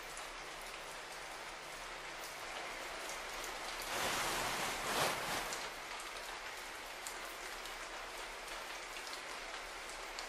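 Steady rain-like hiss with fine patter, swelling louder for about a second and a half around the middle.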